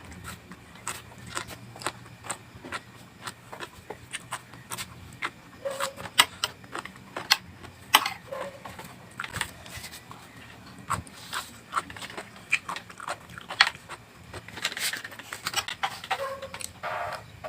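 Close-up eating of raw vegetables: irregular crisp crunches and wet mouth clicks of biting and chewing, several a second.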